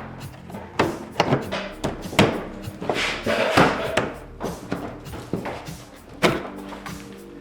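Plastic front bumper cover being handled and pushed into place on the car, with a string of hollow knocks and clunks, over background music.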